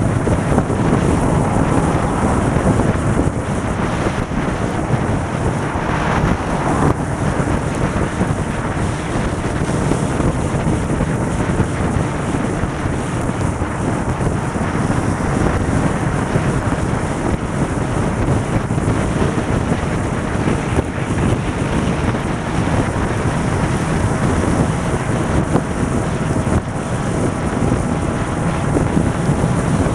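Steady, loud wind rush buffeting the microphone at motorway speed on a Honda CBR600RR sportbike, with the bike's inline-four engine holding an even note underneath.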